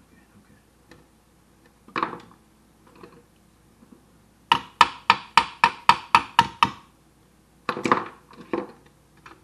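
A hand tool striking the steel power-seat track of a Ford Explorer: a quick run of about a dozen sharp, ringing metal taps, about five a second, in the middle, with a few single knocks before and after.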